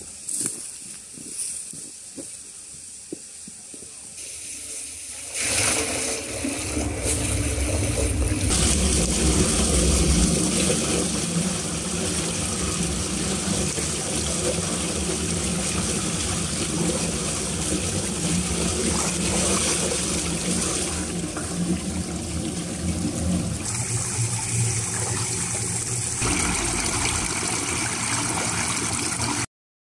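A few light steps, then from about five seconds in a loud steady rush of water: pond water pouring and swirling down into a submerged drain pipe opening.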